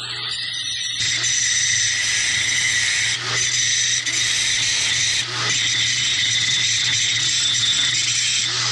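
Angle grinder grinding on a steel axle housing, cleaning off old brackets and weld: a steady high-pitched whine that starts about a second in and dips briefly three times, over a steady low hum.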